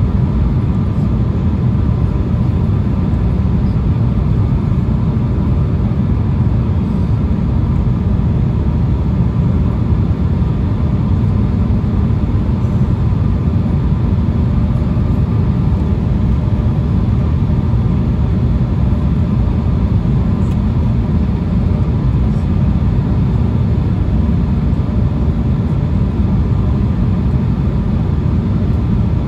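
Steady in-cabin noise of an Embraer E175 regional jet on approach with its landing gear extended: a loud, deep, unbroken rumble of airflow and engines, with a faint steady hum above it.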